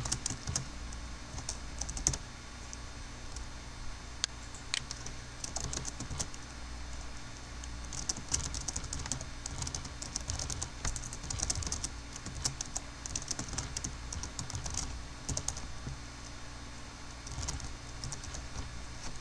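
Computer keyboard typing: runs of quick keystrokes broken by short pauses.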